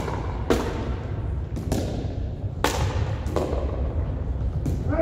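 Pickleball rally: hard paddles hitting the plastic ball, about six sharp pops at uneven intervals, each with a short echo off the gymnasium walls.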